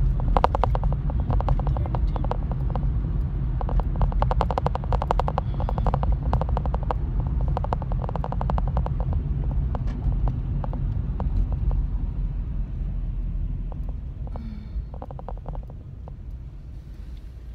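Car road and engine rumble heard from inside the cabin while driving, with a rapid, uneven rattle of small clicks over it. The rumble fades over the last few seconds as the car slows.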